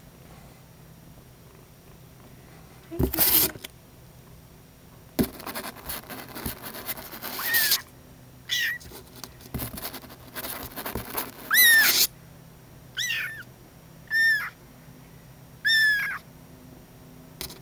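Young kitten meowing, about six short, high-pitched mews in the second half, each rising then dropping in pitch. Several bursts of rustling come between and before the calls.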